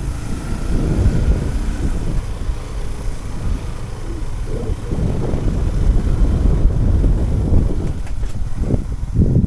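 Motorcycle on the move: a low, steady engine rumble mixed with wind buffeting the microphone.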